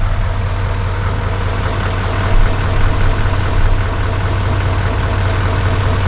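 Chevrolet pickup plow truck's engine idling steadily.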